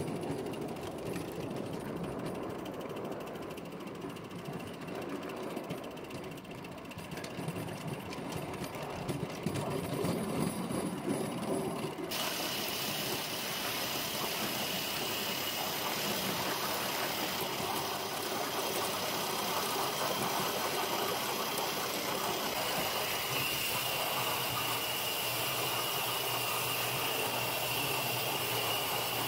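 A scratch-built 3½-inch-gauge live steam model locomotive of Martin Evans's 'William' design running along the track, with a steady mechanical rattle. About twelve seconds in, the sound changes abruptly to a brighter, steady hiss.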